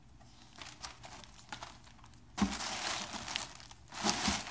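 Thin plastic bag crinkling and rustling as it is handled, starting about halfway in after a quiet stretch with a few faint taps, and pausing briefly near the end.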